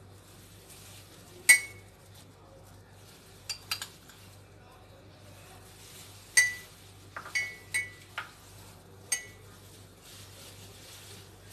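A spoon clinking against a glass mug as crushed motichoor laddoo is scooped into it: about eight sharp, scattered clinks, the loudest about a second and a half in and again past the middle.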